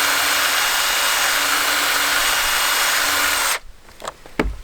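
Cordless drill at high speed spinning a round chain file against the cutters of a worn chainsaw chain: a harsh rasping grind over a steady motor hum. It stops suddenly about three and a half seconds in, followed by a couple of short knocks.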